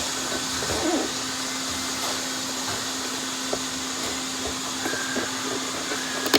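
Robot vacuum cleaner running: a steady motor whirr and fan hiss with a constant low hum.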